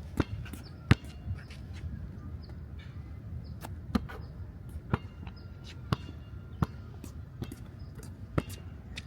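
A basketball bouncing on a hard court: about seven sharp thuds, several of them roughly a second apart, over a steady low background.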